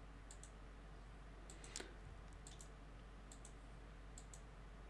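Faint regular double clicks, about one pair a second, over near-silent room tone, with a single louder knock a little under two seconds in.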